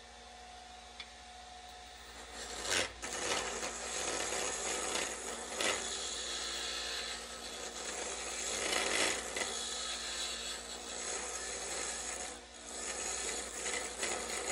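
A hand turning tool cutting a spinning canary wood handle blank on a wood lathe, reducing the tenon end to fit a copper ferrule. It starts about two seconds in as a steady, rough scraping hiss of shavings coming off, with a brief break near the end.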